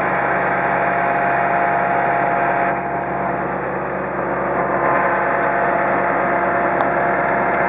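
Engine running steadily at an even speed: a constant hum with a few held tones over a dense mechanical noise.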